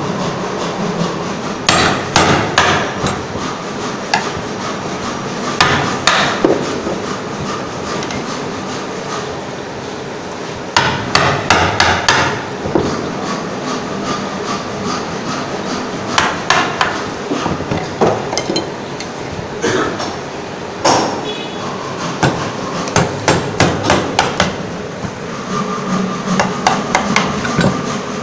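A mallet driving a woodworking chisel into a piece of wood, in runs of quick sharp blows broken by short pauses.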